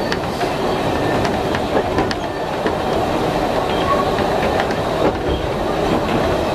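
Hankai Tramway tram car 505 running along the track, heard from inside its cab: a steady rumble of wheels and traction motor, with a few sharp clicks.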